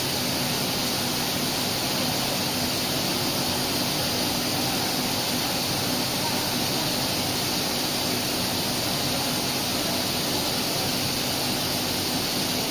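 5-axis CNC tool grinder running a grinding cycle: a steady rushing hiss with a faint even hum underneath.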